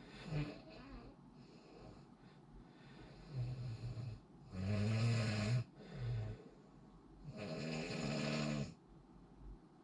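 A person snoring: a run of rough, pitched snores, the loudest and longest about five seconds in and another long one about eight seconds in, with shorter, fainter snores between them.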